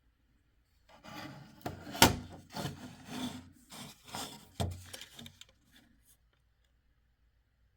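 Scraping and rubbing handling noise from a fire alarm sounder strobe being moved about by hand, with a sharp knock about two seconds in and another a few seconds later. The alarm itself is not sounding.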